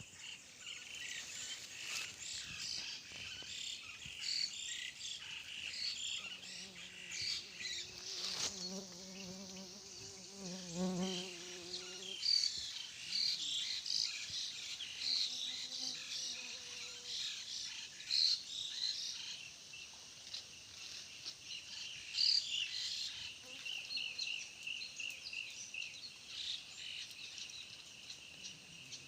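Continuous rapid, high-pitched chirping throughout. A lower pitched, wavering hum joins in for several seconds about a quarter of the way in.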